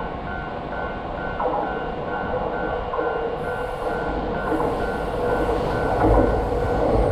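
Japanese level-crossing alarm ringing with a steady, repeating ding while a Seibu Railway electric train approaches. The train's rumble grows over the last few seconds, and its wheels clack over the rail joints near the end.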